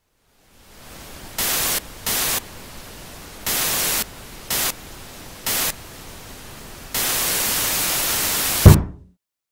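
Old television's static hiss, jumping six times into loud bursts of static, the last one long. It ends in a sharp thump as a fist bangs the set, and the sound cuts off.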